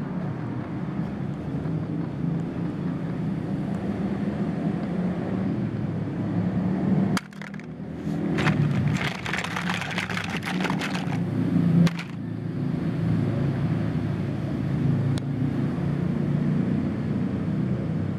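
Small plastic toys clicking and rattling as they are handled in a plastic basket for a few seconds near the middle, over a steady low outdoor rumble.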